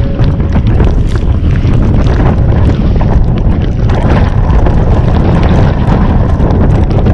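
Roar of a 45 km/h monsoon wind buffeting the microphone of a kayak at sea, a loud steady rush heaviest in the low end, with heavy rain and choppy waves pattering and slapping through it.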